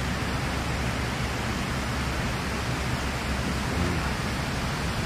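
Steady rushing noise of wind on an action camera's microphone, with no distinct events.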